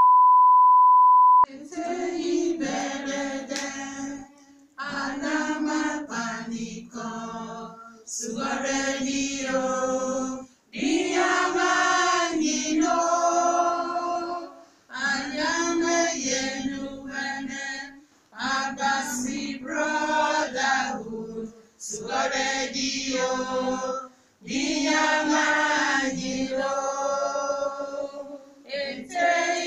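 A steady 1 kHz test tone for about a second and a half, then a choir singing a slow religious chant in phrases of two to three seconds with short breaks between them.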